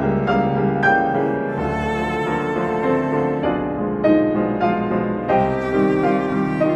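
Cello and piano playing an aria in an old style: a sustained bowed cello melody over struck piano notes.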